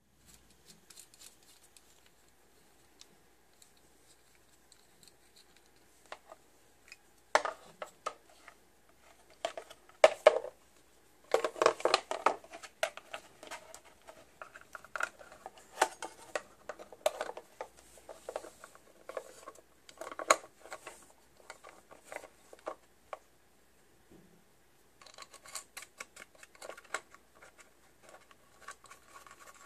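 Vintage Christmas color wheel being assembled by hand: its metal motor-and-socket bracket and red plastic housing clicking, scraping and rattling against each other. After a nearly quiet start come scattered clicks and scrapes, with a quick run of small clicks near the end.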